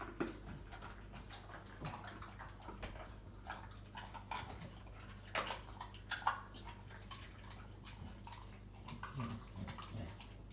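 American Bully dog chewing raw chicken bones: wet smacking and gnawing with irregular cracks and crunches of bone, a couple of sharper ones just past the middle.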